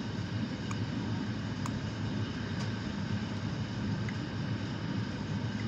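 FIAT ALn668 diesel railcar's underfloor diesel engines running steadily under way, heard from inside the passenger compartment with the rumble of the running gear. A few faint ticks come about a second apart in the first three seconds.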